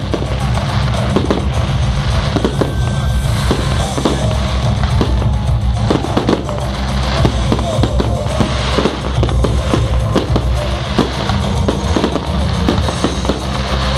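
Fireworks going off in rapid succession, many sharp bangs and crackles, over loud music with a heavy bass.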